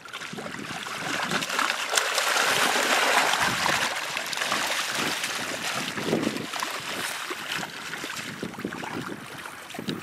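Lake sturgeon thrashing and splashing in shallow water as they spawn, a busy churning of water, loudest from about two to four seconds in, then easing.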